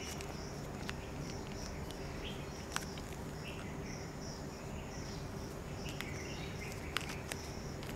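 A cricket chirping faintly and evenly, about three short high chirps a second, over a steady low hum of room tone, with a few small clicks of marker pens being handled.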